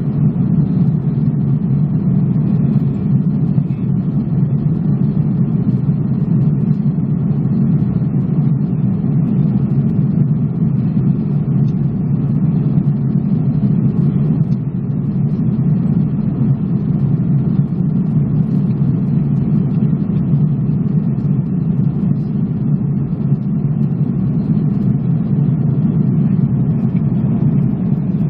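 Steady low rumble inside the cabin of an Airbus A330-300 in cruise flight: engine and airflow noise, unchanging, with no other sounds standing out.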